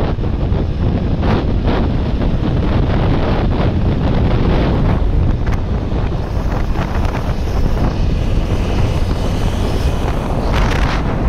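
Heavy wind rushing and buffeting over the microphone of a motorcycle riding at highway speed, with a few stronger gusts.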